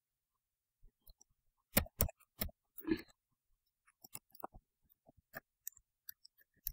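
Computer keyboard keys being pressed at an irregular pace: a few firmer clicks about two seconds in, then lighter, scattered taps.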